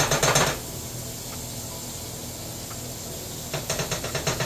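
Salmon frying in a pan with a steady faint sizzle. A quick run of scraping and clicking from a utensil in the pan is heard at the start, and again from near the end.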